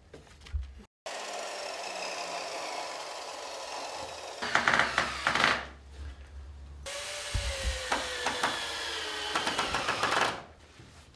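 Electric miter saw cutting timber, two cuts: the blade runs, grows louder as it bites into the wood, and its whine falls in pitch as it slows.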